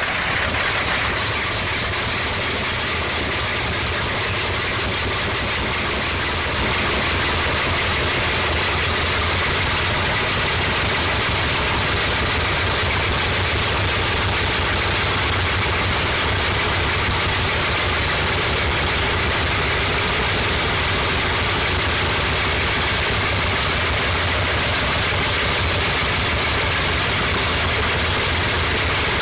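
Bristol Hercules 14-cylinder sleeve-valve radial aero engine catching abruptly on start-up, then running steadily with its propeller turning. It gets louder about six and a half seconds in and holds there.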